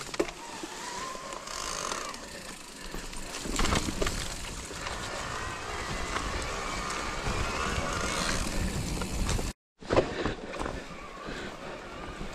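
Electric mountain bike riding along a forest trail covered in fallen leaves: tyres rolling over the leaves and dirt, the bike rattling and knocking over bumps, and at times a faint wavering whine from the assist motor. The sound drops out for a moment near the end.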